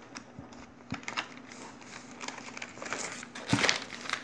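Clear plastic sleeve crinkling and rustling as a hand handles the bagged magazines and papers, in scattered short crackles, with a louder rustle about three and a half seconds in.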